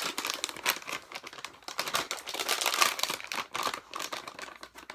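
A dog-treat pouch being opened and handled: irregular crinkling and rustling of the packaging, busiest in the middle.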